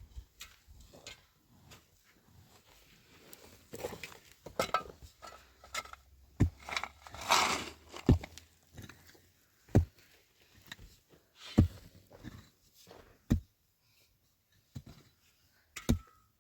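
A series of heavy, sharp thuds, six blows about every one and a half to two seconds, with rustling and scraping between them and before them, like someone working with a hand tool.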